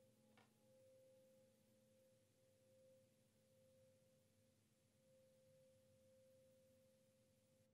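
Near silence: a faint, steady pure tone, with one small click about half a second in.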